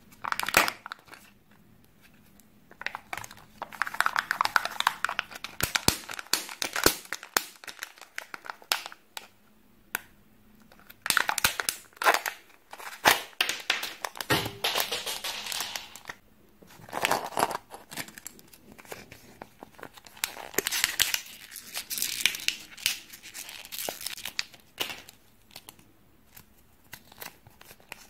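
Kinder Joy egg packaging being opened by hand: the seal peeled off an egg half, the plastic toy capsule pulled apart and a paper toy leaflet unfolded. Irregular bouts of crinkling and tearing with sharp clicks and snaps, separated by short pauses.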